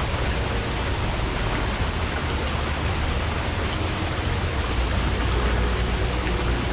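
Forest stream flowing, a steady rushing of water with a deep low rumble underneath.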